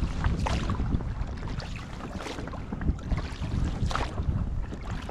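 Wind buffeting the microphone as a steady low rumble, with a few short splashes of water near the boat.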